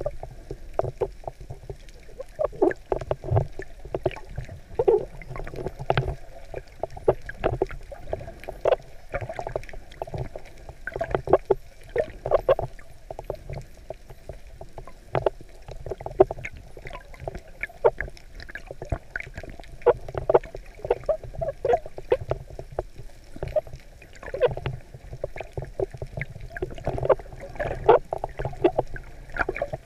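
Muffled underwater water noise picked up by a GoPro in its waterproof housing: irregular sloshing and bubbling with many short knocks as the camera moves through the water.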